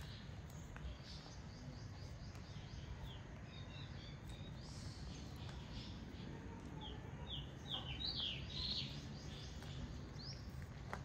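Small birds chirping in quick runs of short, high notes, busiest about eight seconds in, over a steady low rumble of background noise.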